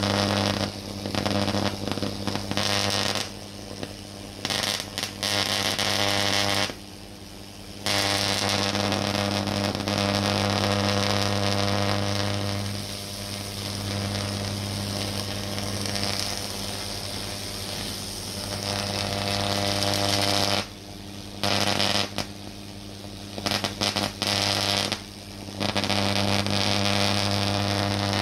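Vacuum tube Tesla coil discharging: sparks arcing onto a ceramic plate on the top load, a steady mains-rate buzz with a sizzling hiss over it. The buzz breaks off briefly several times and resumes.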